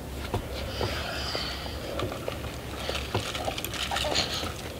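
Close-miked eating sounds: scattered small wet clicks and soft chewing, with a bite into a saucy chicken wing near the end, over a steady low hum.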